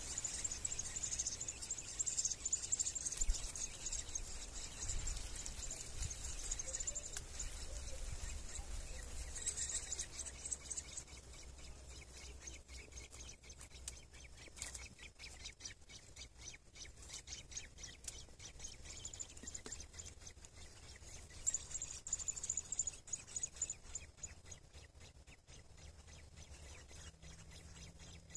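Sabiá thrush nestlings begging with thin, high-pitched calls as a parent feeds them at the nest. The calls run through roughly the first ten seconds, return briefly a little past two-thirds of the way in, and come with faint rustling clicks from movement in the nest.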